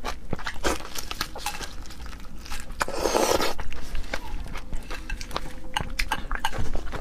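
Close-miked eating of a large mantis shrimp in sauce: wet sucking and biting with many small clicks and crackles from the shell, and one louder, longer wet sound about three seconds in.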